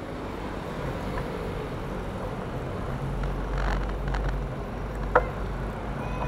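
Wind and road rumble on a camera riding on a moving bicycle, the low rumble heavier from about halfway through, with one sharp click about five seconds in.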